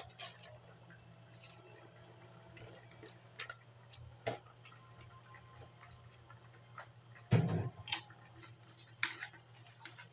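Cabbage leaves tipped from a plastic tub into a metal wok of broth and stirred with a metal spatula: scattered light clacks and knocks, with a louder thump about seven seconds in, over a steady low hum.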